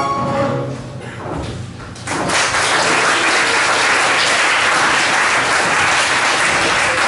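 A song ends in the first second or so, then an audience breaks into applause about two seconds in, clapping steadily and loudly.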